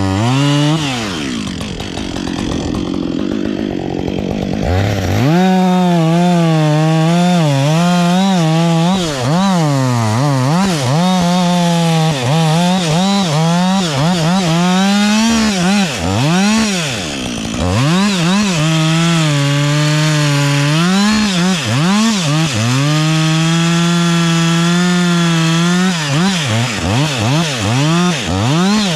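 Gas chainsaw running and cutting wood, its engine pitch rising and falling repeatedly as it is revved and loaded. It sinks lower and rougher for a few seconds near the start, then revs back up.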